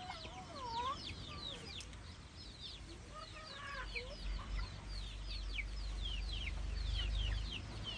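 Chickens clucking and calling, over a steady run of short, high, falling chirps, with a low rumble from about halfway to near the end.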